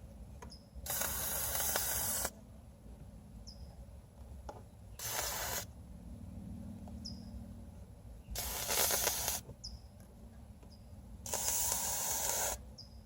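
Can of contact cement sprayed through an 18-gauge hypodermic needle into the gap behind a sagging headliner: four hissing spurts of about a second each, with pauses between.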